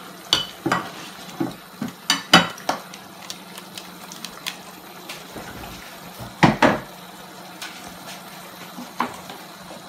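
Silicone-tipped tongs knocking and scraping against a plastic colander and the rim of a paella pan as green peas are tipped into the simmering sauce: a run of sharp knocks in the first few seconds, a loud pair about six and a half seconds in and one more near the end, over a steady low simmer.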